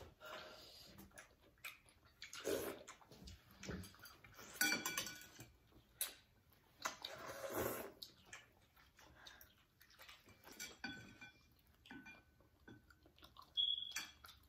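Eating at a table: quiet chewing and mouth sounds, with scattered clicks of chopsticks and spoons against ceramic bowls, a few ringing briefly.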